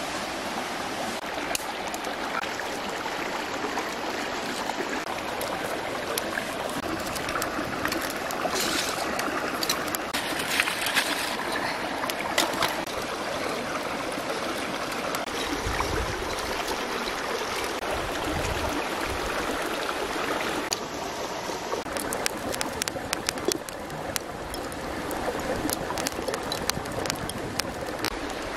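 Kindling twigs crackling and snapping as a charcoal fire catches, over a steady rushing background. The snaps come thickest in two spells, about a third of the way in and through the last quarter.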